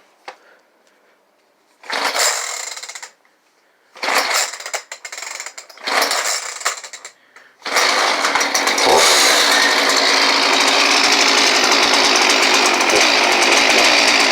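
Two-stroke chainsaw being pull-started cold without the choke after priming: three pulls on the starter cord, then it catches about eight seconds in and keeps running steadily.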